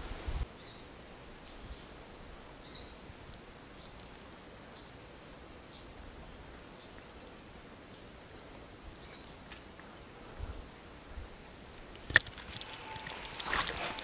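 Jungle insects droning, a steady high-pitched whine with a lower chirping pulse repeating beneath it. A single sharp click about twelve seconds in, and some rustling just before the end.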